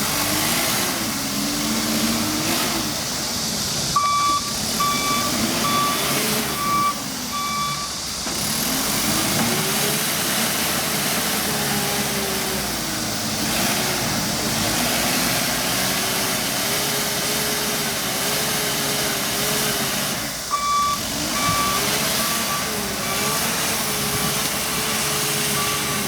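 Backhoe loader's diesel engine revving up and dropping back again and again as it works, with its reversing alarm beeping in two runs, about four seconds in and again near the end.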